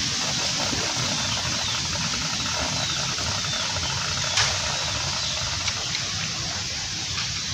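Steady outdoor background hiss with a few faint, short, high chirps, and a sharp click about four seconds in.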